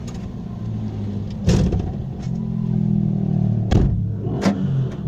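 Car engine running close by with a low, steady hum, cut by three sharp bangs: one about a second and a half in and two near the end.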